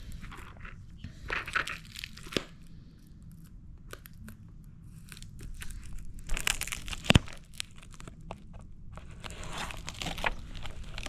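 Packaging being torn open and crumpled while boxes of ammunition are unpacked, in irregular rustling bursts, with one sharp knock about seven seconds in.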